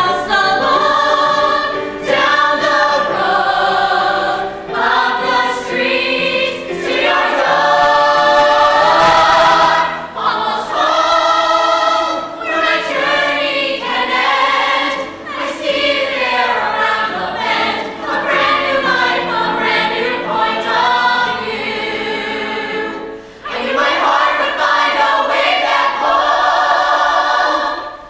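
A mixed ensemble of men and women singing a musical-theatre song together in harmony, with long held notes; the voices break off briefly near the end and come back in.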